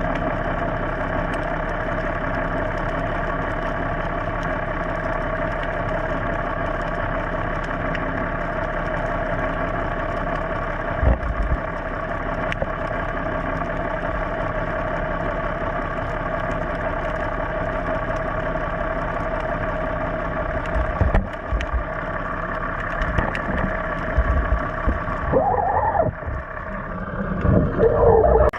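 Boat engine running steadily at idle, with a few low thumps partway through and more irregular knocking near the end.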